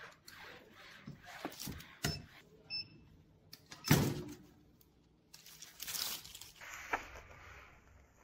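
Manual clamshell heat press closing on a DTF transfer: the platen comes down with one loud clunk about four seconds in. Before it come the rustle of the transfer film and handling clicks, and after it a stretch of rustling.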